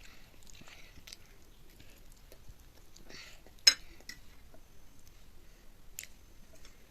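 Chow mein being eaten: quiet chewing and small clicks of cutlery on a plate, with one sharp click about halfway through.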